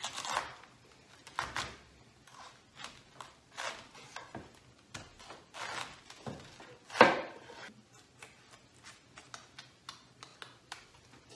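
A large chef's knife cutting through a raw head of green cabbage and knocking on a wooden cutting board: a series of separate cuts and knocks, the loudest about seven seconds in, then fainter ticks.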